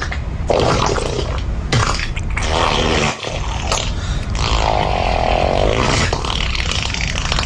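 Farting sound effect: a run of loud, rasping fart noises. The longest is a wavering, pitched one about four to six seconds in.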